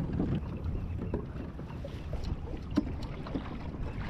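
Kayak under way: water sloshing against the hull with scattered small knocks and ticks, the sharpest just before three seconds in, over a low wind rumble on the microphone.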